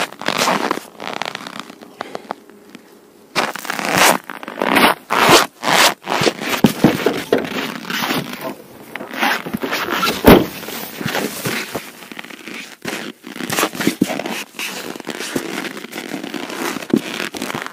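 Boots crunching and squeaking on hard-packed frozen snow, mixed with scrapes and knocks as the wooden set-line stakes and frozen burbot are handled and laid on the snow, with one louder knock about midway.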